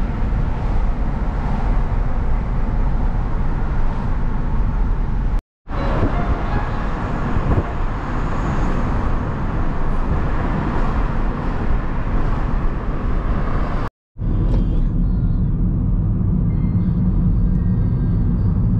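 City traffic and road noise in three cut-together segments. The last, from about fourteen seconds in, is the low rumble of tyres on the road heard inside a moving car's cabin.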